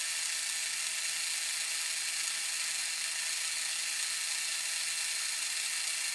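Small gear motor of a 3D printing pen whirring steadily as it feeds ABS filament out through the heated nozzle.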